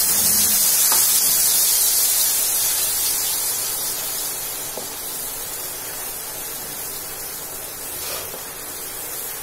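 Wet spice paste sizzling loudly in hot ghee in a kadhai as it goes in. It is loudest just after the paste lands and eases to a steadier sizzle over the next few seconds, with a few light knocks of a wooden spatula stirring it. The spices are added as a paste so they do not burn.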